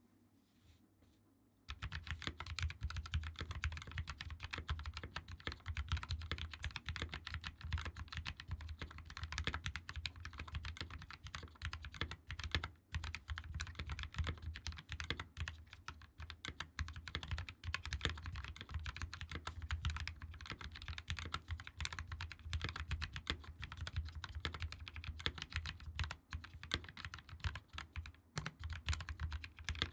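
Continuous typing on a 60% mechanical keyboard fitted with Gateron CAP switches, lubed with Krytox 205g0 and filmed, in a plastic case with a brass plate and GMK keycaps. The keystrokes begin after about a second and a half of near silence and go on as a dense, unbroken stream of key clacks.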